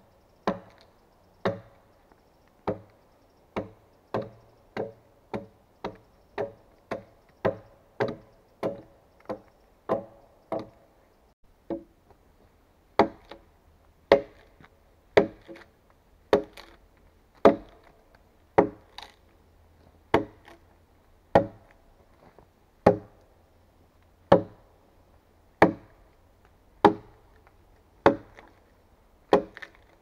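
Axe chopping into a wooden log, sharp blows about once a second. The blows become louder and a little more spaced about halfway through.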